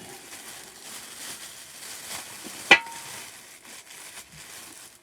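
Plastic packaging crinkling and rustling as it is handled around a cast-iron Dutch oven, with one sharp clink a little past halfway that rings briefly.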